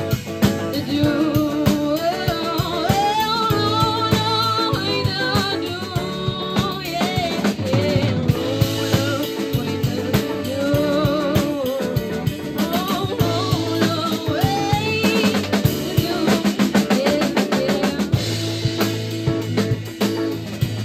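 A live psychedelic jazz band playing, with a drum kit keeping a busy beat under a wavering lead melody and bass.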